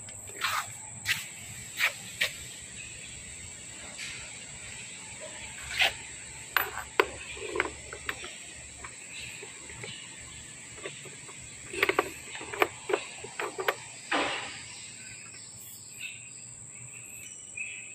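Sharp metal clicks and clinks from a steel sleeve and the jaws of a three-jaw chuck being handled as the part is clamped, coming in scattered clusters, with a dense run near the end. A steady high-pitched whine runs underneath.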